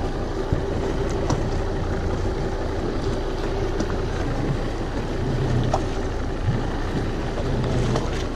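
A small fishing boat's motor running steadily under wind buffeting the microphone, with a few light knocks.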